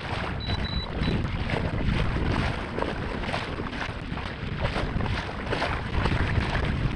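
Kayak moving through choppy sea water: water rushing and splashing along the hull, with wind buffeting the microphone. A few quick high beeps sound about half a second to a second in.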